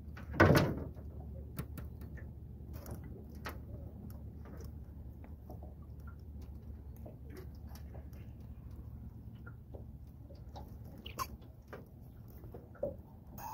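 Scattered small clicks and taps of fishing line, tackle and landing net being handled while a tangled line is worked free of a netted fish, over a low steady rumble, with one louder brief sound about half a second in.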